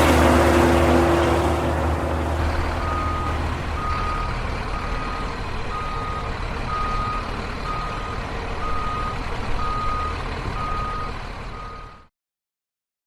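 Truck reversing alarm beeping at one steady pitch, about once a second, over the low running of the truck's engine. The engine is louder for the first couple of seconds, then settles. Everything cuts off suddenly near the end.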